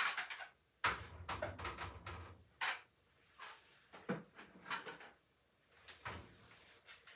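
Kitchen cupboard doors and drawers being opened and shut and kitchenware clattering, as someone rummages through them: a string of irregular knocks and rattles, the loudest about a second in.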